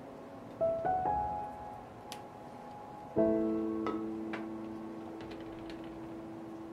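Soft background piano music: a few single notes near the start, then a chord about three seconds in that rings on and slowly fades. Faint light clicks sound underneath.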